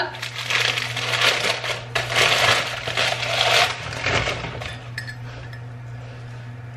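Brown paper wrapping crinkling and rustling as a ceramic mug is unwrapped by hand, loud for the first four seconds and then dying down to quieter handling of the mug.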